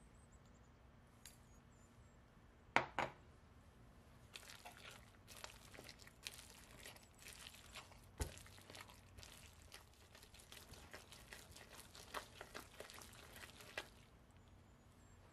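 Silicone spatula stirring a thick, sticky batter of grated potato and yeast dough in a glass bowl: a dense, irregular run of small wet clicks and scrapes lasting about ten seconds. Two sharp knocks come about three seconds in, just before the stirring starts.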